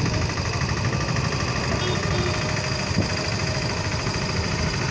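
Vehicle engine running steadily at low speed, with one brief knock about three seconds in.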